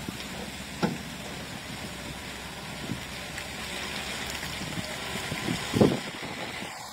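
Heavy-haulage truck moving slowly with a wind-turbine blade on its trailer, heard as a steady rushing noise. Two short thumps break through, one about a second in and a louder one near the end.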